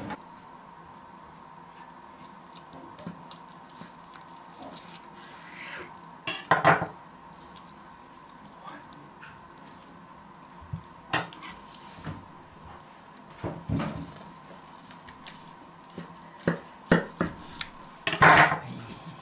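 Knife and pieces of smoked pork ribs knocking and clicking on a wooden cutting board: a scattering of short, sharp knocks, several close together near the end, over a faint steady hum.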